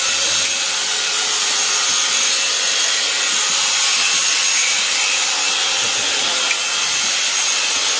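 Electric sheep-shearing clipper running steadily, its blades cutting through the fleece.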